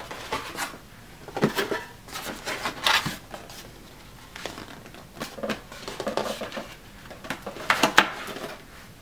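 Cardboard box being folded and handled: irregular rustling, scraping and soft knocks of cardboard panels.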